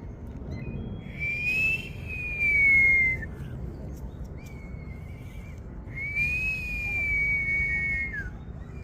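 Whistled notes: two long ones, each rising slightly then sliding down over about two seconds, with a shorter level note between them.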